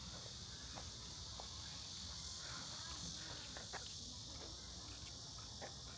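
Faint, steady, high-pitched insect chorus with a few faint ticks.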